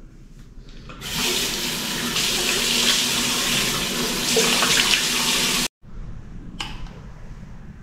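Bathroom sink faucet running, its water splashing over cupped hands during face washing. The water starts about a second in and stops abruptly after about five seconds.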